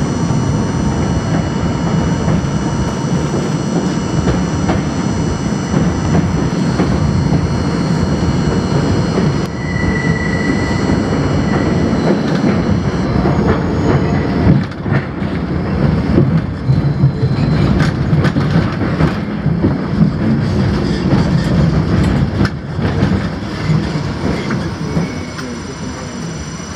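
R42 subway train running on an elevated steel structure: steady rumble of the wheels with clickety-clack and sharp clicks as it crosses switches, and thin wheel squeal with a brief louder squeal about ten seconds in. The noise dies down near the end as the train slows.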